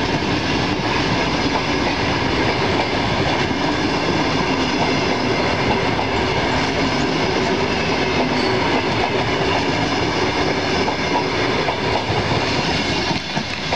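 A long passenger train's coaches rolling past, their wheels clattering on the rails over a steady rumble. The sound eases a little near the end as the last coach goes by.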